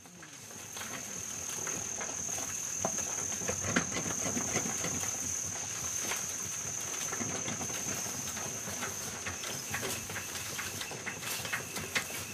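A hand-pushed cargo wagon rattling and knocking along a rough jungle track, with shuffling footsteps of the men pushing it, irregular clicks and knocks throughout. A steady high whine runs underneath.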